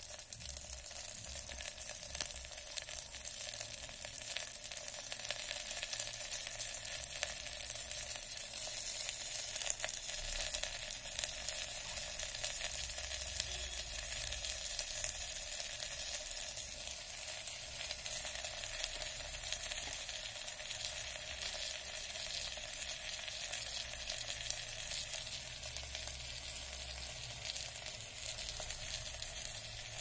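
Chopped green beans and potatoes frying in hot mustard oil in a stainless steel electric kettle: a steady sizzle full of fine crackles.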